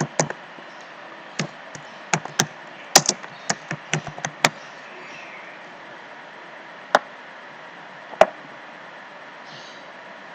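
Computer keyboard typing: about a dozen quick key clicks over the first few seconds, then two single clicks a little over a second apart from mouse clicks, over a steady faint hiss.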